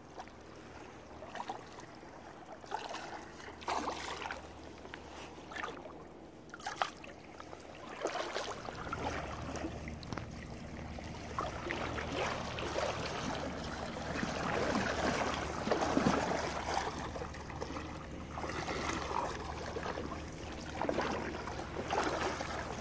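Water sloshing and splashing around an angler's waders as he wades through shallow water. There are a few scattered knocks at first, and the splashing grows louder and steadier after about eight seconds.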